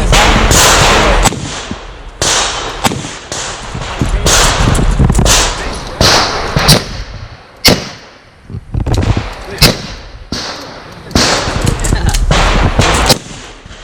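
A string of single handgun shots fired at an uneven pace, a dozen or so, each followed by a short echo.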